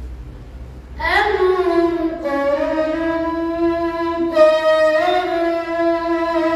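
A young boy's voice reciting the Quran in melodic tajweed chant, starting about a second in and holding long, high notes that bend slowly in pitch.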